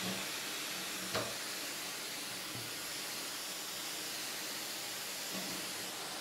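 A steady hiss with a few soft knocks as a wooden bowl blank and a bar clamp are handled on a rubber-matted workbench, the sharpest knock about a second in.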